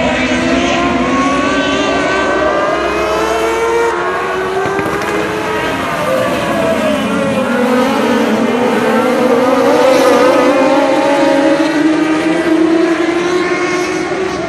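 A pack of dirt-track race cars racing past at speed, several engines running hard together, their pitches rising and falling as the cars pass and go through the turn. Loudest about ten seconds in, as the cars go by closest.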